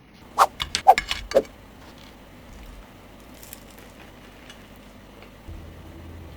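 Crisp, crunchy baked bread crackling as it is cut or bitten into: about six sharp crunches in quick succession in the first second and a half, then only a low background hum.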